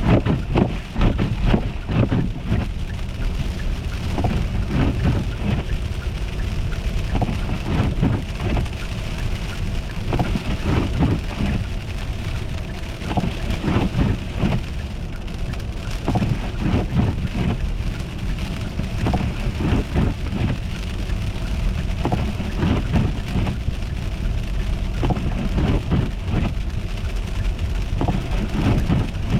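Car driving over an ice- and snow-covered road: a steady low rumble of tyres and road noise with many irregular crunches and crackles.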